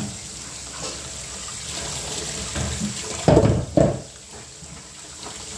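Kitchen tap running into a steel sink while rambak krecek (dried hide crackers) are rubbed and rinsed by hand in a plastic colander under the stream. Two brief louder sounds come about three and a half seconds in.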